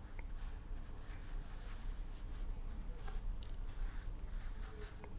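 Faint, irregular scratching of a pen writing on a surface, over a low steady room hum.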